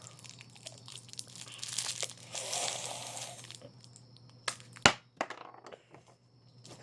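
Plastic bag crinkling as it is handled and opened, with two sharp clicks a little after the middle, the second the loudest.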